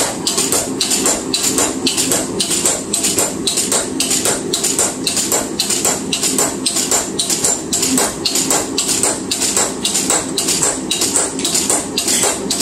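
Homemade treadle hammer, a sledgehammer head on a pivoting arm, striking a red-hot railroad spike on a steel block in a steady rhythm of roughly three blows a second, setting the start of the knife blade's belly. A steady low hum runs underneath.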